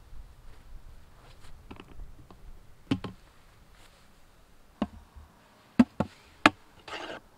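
Hard plastic knocks and clicks from a square plastic bait bucket: a knock as it is set down, then three sharp clicks close together as its lid is unclipped and lifted off, followed by a short plastic scrape.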